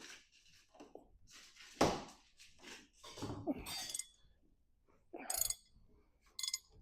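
A tight 28 mm nut on a hydraulic cylinder rod being broken loose with a 3/4-inch drive wrench: scattered knocks and strained metal noises, the loudest a sharp knock about two seconds in, then short ringing metal clinks near the end.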